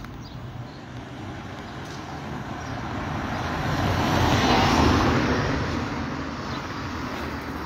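A road vehicle passing by: traffic noise that swells to a peak a little before the middle and then fades away.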